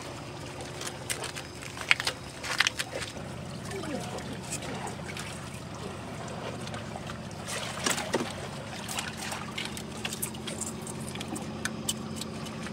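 Shallow seawater trickling and sloshing among oyster-covered rocks, with scattered sharp clicks and scrapes as a hand probes the crevices, a cluster about two seconds in and another near eight seconds.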